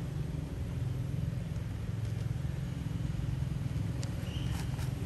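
Steady low engine rumble, with a brief high squeak about four seconds in.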